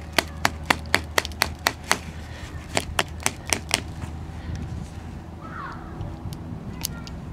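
Quick sharp clicks, about four a second in two short runs, then a few fainter ticks, over a low steady hum. They come from the test leads and wiring being handled at a dead 1992 Ford Explorer fuel pump and its test battery; the pump itself does not run.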